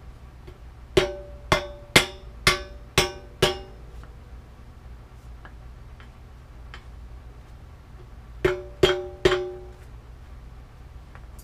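Hammer blows driving a headset bearing cup into a bicycle frame's head tube without a press tool: six ringing metallic strikes about half a second apart, then after a pause three more.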